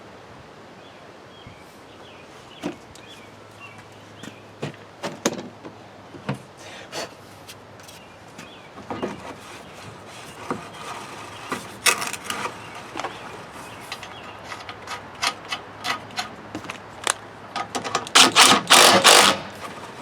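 Lawnmower wheel being worked on its axle after greasing its rusty metal sleeve bushing: scattered clicks, knocks and rubbing that grow busier, ending in a burst of rapid clatter near the end as the wheel is spun.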